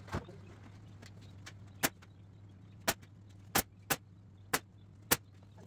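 Pneumatic staple gun firing staples through chicken wire into a wooden frame: about seven sharp shots at uneven intervals, two in quick succession near the middle, over a steady low hum.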